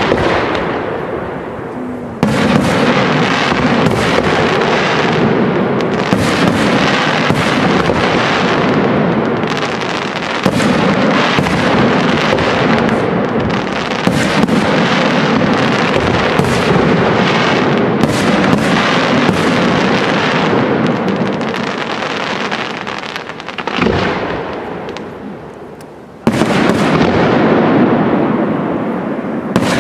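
Aerial fireworks display: shells bursting in a dense, continuous barrage of bangs and crackle. It eases off for a few seconds near the end, then starts again with a sudden loud burst.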